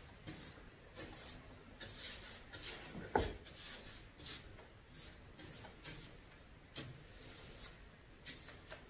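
A paintbrush swishing over paper in a series of short strokes as letters are painted, with one soft knock against the board about three seconds in.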